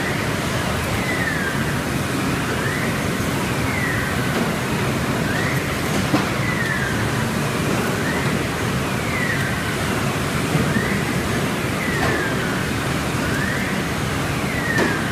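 STEEN ST 700 poultry skinning machine and its plastic conveyor belt running, a steady mechanical noise. A faint squeak glides down and then back up over and over, roughly every two and a half seconds.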